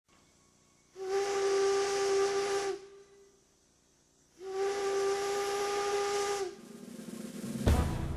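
Steam whistle blowing two long blasts of steady pitch, each about two seconds, with a hiss of steam. Near the end a different, lower sound comes in, with a sudden loud bang.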